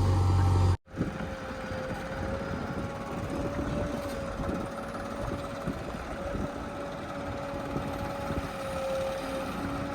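Diesel engine of heavy machinery running steadily, with a steady whine over the rumble. The sound cuts in after a brief gap about a second in.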